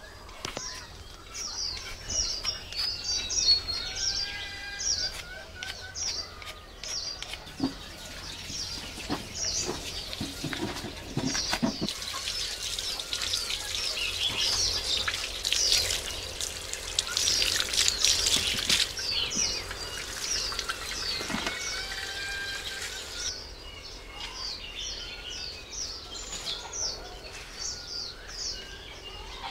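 Small birds chirping repeatedly in quick, high calls. From about twelve seconds in, tap water runs for around ten seconds, splashing onto sweet potatoes being washed in a concrete basin.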